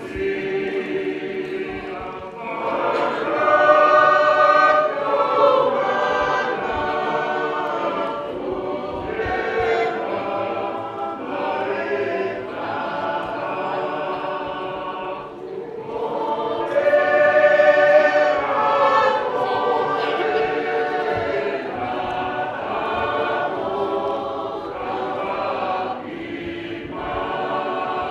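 A church congregation singing a hymn together in long held phrases, swelling louder twice.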